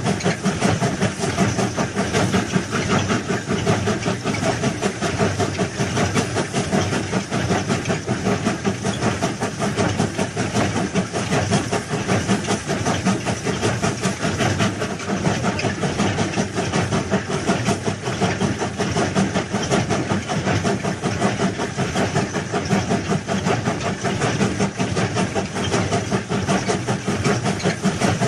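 Engine of a heavy crawler track-laying machine running steadily, a dense, unchanging mechanical noise with a fast flutter.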